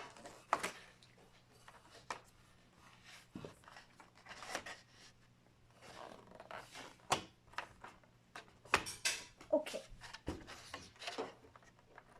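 Pokémon trading cards and their packaging being handled: scattered rustles and light taps, with a few sharper clicks, over a faint steady hum.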